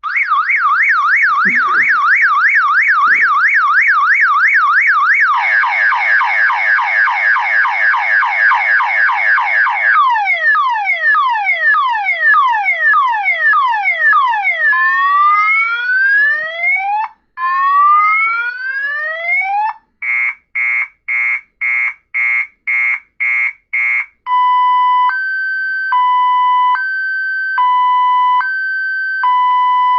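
A car-alarm siren sound played on a Samsung Galaxy Star Plus phone, starting suddenly and cycling through its tones: a fast up-and-down warble, then a faster warble, repeated falling chirps, slow rising whoops, rapid on-off beeps, and finally a steady two-tone high-low alternation.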